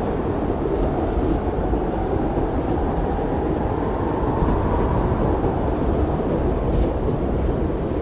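Blizzard wind blowing steadily: a deep, even rumbling rush of storm wind with no gusting peaks.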